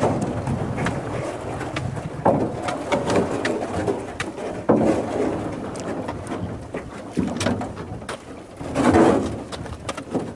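Small boat being poled and paddled through floating ice: an uneven string of knocks and scrapes from the pole, the paddle and the ice against the hull. The loudest comes about nine seconds in.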